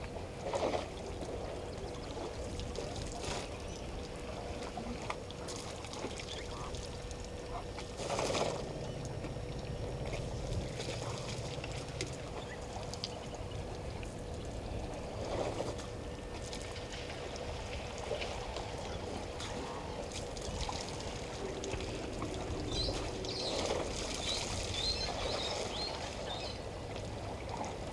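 Water pouring and splashing at a waterhole as elephants drink, over a steady outdoor hiss and a faint steady hum, with a few short bird chirps near the end.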